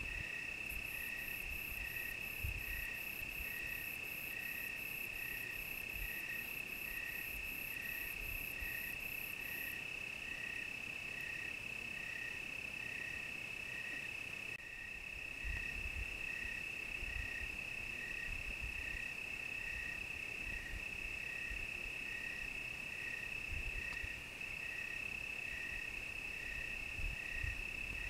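Crickets chirping in a chorus: a steady high trill with a slower pulsed chirp about twice a second beneath it, and a faster, very high pulsing chirp that stops about ten seconds in. A few faint low thumps now and then.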